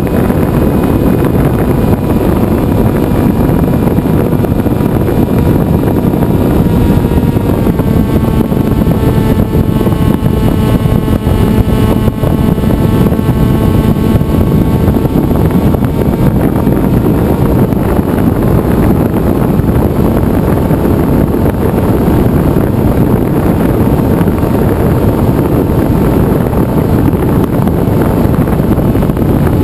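Onboard sound of a Venturi FPV flying wing in flight: heavy wind rush over the camera under the steady whine of its motor and propeller. The whine's pitch dips slightly about seven seconds in and again near eighteen seconds.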